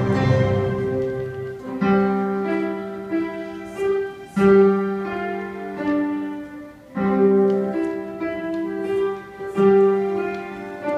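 An ensemble of electronic keyboards and digital pianos playing a piece together, in phrases of held notes, a new phrase beginning about every two and a half seconds.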